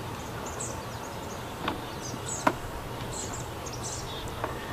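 Chainsaw chain links clicking against the metal of a chain breaker's vise as the chain is set in place: three sharp metal clicks, the loudest about two and a half seconds in. Small birds chirp in the background.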